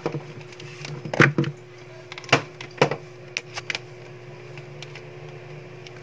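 Scattered clicks and taps of test leads and a clamp meter being handled as a no-frost refrigerator's defrost sensor is hooked up for a resistance reading, over a steady faint hum.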